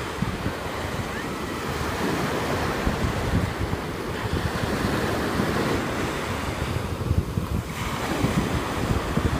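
Small ocean waves breaking and washing up the beach, with gusts of wind buffeting the microphone.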